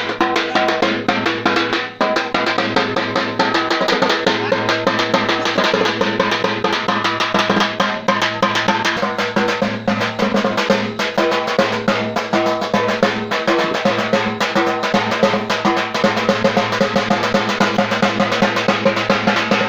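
Fast, continuous drumming with rapid strikes and rolls, over a steady low drone.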